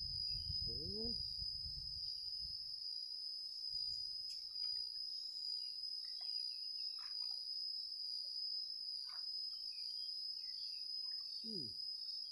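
A steady, high-pitched drone of insects throughout, with a man's short rising vocal sound about a second in and a short falling one near the end.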